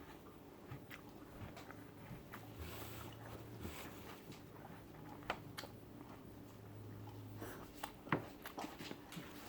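Faint chewing and mouth clicks of a person eating, with a few sharper ticks scattered through, the clearest about eight seconds in.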